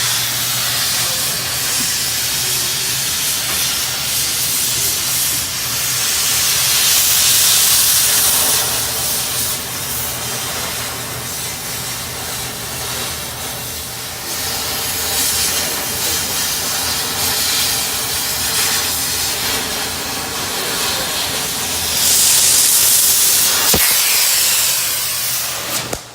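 Oxy-acetylene torch flame hissing steadily while it is used on steel, with a steady low hum underneath. The hiss grows louder and higher twice, a few seconds in and again near the end.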